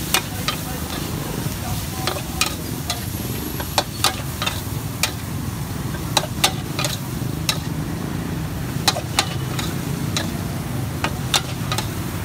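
Greens sizzling in a hot wok while a metal spatula scrapes and clanks against the pan, with irregular sharp knocks about once or twice a second over a steady hiss.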